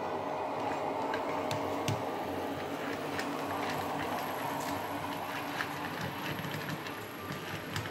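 Model ALe 803 electric railcar running along the track, its sound decoder playing an electric railcar's running sound. A steady hum with a held tone carries through, with scattered small clicks from the wheels on the rails.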